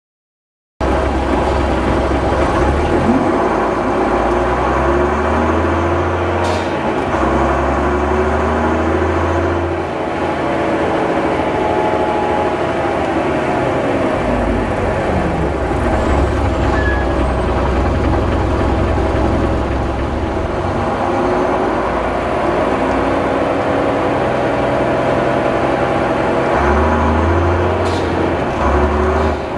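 Leyland Olympian double-decker bus engine running under way, its note rising and falling through several gear changes. Two short, sharp hisses come with gear changes: the 'sneezing gears' of its air-operated gearbox.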